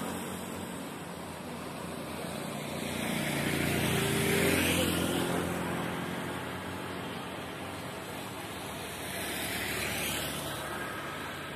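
Vehicle noise: a steady rumble that swells twice as something passes, about four seconds in and again about ten seconds in.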